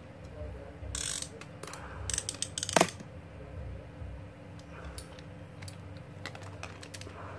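Golden Fish WP51X saltwater spinning reel being turned over in the hands: scattered mechanical clicks and clacks from its parts, with the sharpest click just before three seconds in.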